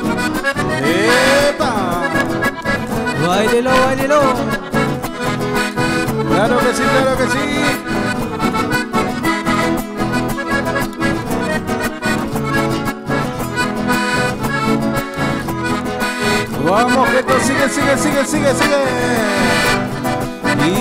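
Piano accordion leading a cumbia with two acoustic guitars strumming a steady rhythm underneath, played live.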